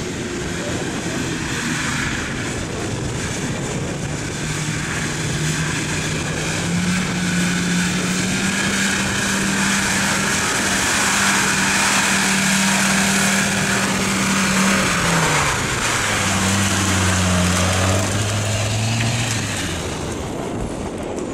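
Land Rover Defender's engine pulling through a muddy, waterlogged track, growing louder as it approaches. Its note rises and holds steady under load, then drops about three-quarters of the way through and settles lower as the truck passes close.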